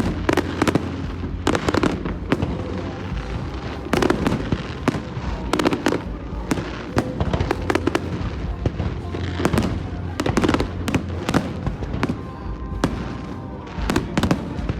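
Fireworks display: shells bursting in a rapid, irregular series of sharp bangs and crackles, several every second.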